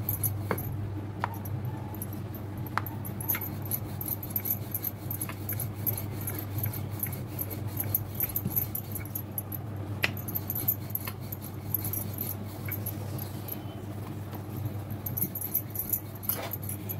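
Wooden rolling pin rolling dough back and forth on a marble rolling board, with scattered light clicks and knocks, over a steady low hum.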